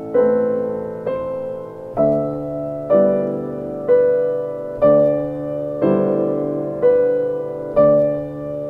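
Background piano music: slow, gentle chords struck about once a second, each ringing and fading before the next.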